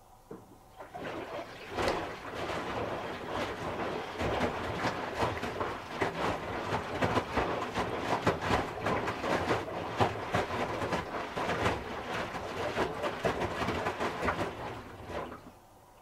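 Hoover H-wash 300 Plus washing machine drum turning a wet load, the clothes sloshing and slapping in the water with an irregular run of soft knocks. The tumble starts about a second in and stops shortly before the end.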